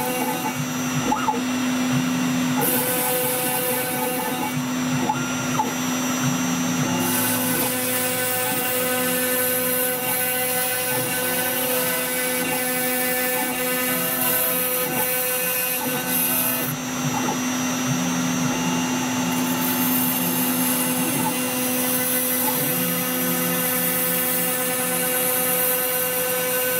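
CNC router spindle running at 20,000 rpm with a 2 mm diamond-cut carbide end mill, milling 2 mm FR4 glass-fibre board. There is a steady machine whine made of several tones that shift every few seconds, and a high cutting hiss that grows louder and fades in long stretches.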